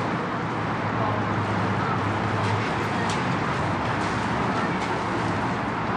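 Poolside background: indistinct voices of children and adults over a steady noise, with a few faint clicks.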